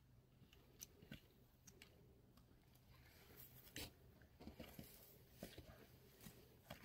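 Near silence with faint, irregular crunches and clicks from a walker moving over a stony track.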